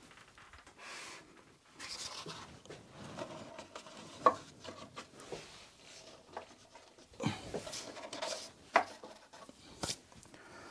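Hands handling a fan set in a wooden drum housing: rubbing and fiddling with small clicks and knocks, the sharpest click about four seconds in and a few more knocks near the end.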